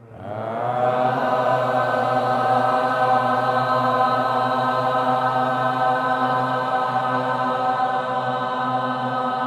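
A long mantra chant of 'Ram' held on one steady pitch, swelling in over the first second and sustained without a break.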